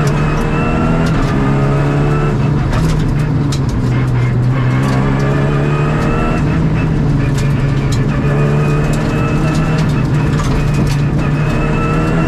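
Rally car engine heard from inside the cockpit at full throttle, its pitch climbing through each gear and dropping at every upshift, several times over.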